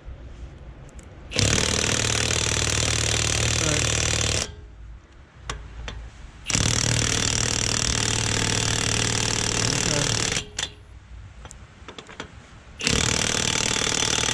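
Impact wrench hammering lug nuts tight on a truck wheel, one nut at a time, in three long runs of a few seconds each with short pauses between them.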